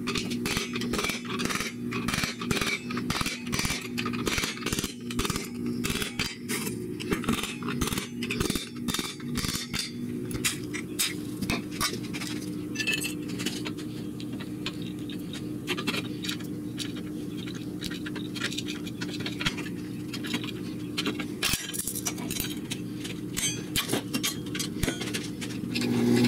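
A quick series of sharp metallic clinks and taps from hand tools worked against steel plate and linear rail, several a second, thinning after about ten seconds to fainter scattered ticks over a steady low hum.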